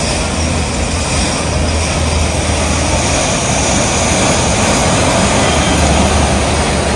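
Road traffic: vehicle engines running with a low hum under a steady wash of noise.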